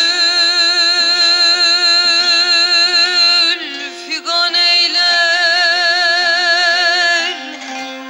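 Turkish folk music: long held notes with a wavering vibrato, a short break about halfway, and the held note ending shortly before the close.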